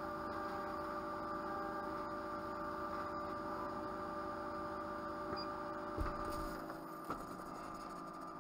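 Steady electrical hum with several constant tones from the running CO2 laser cutter setup. A knock comes about six seconds in and a lighter one about a second later, after which the hum is a little quieter.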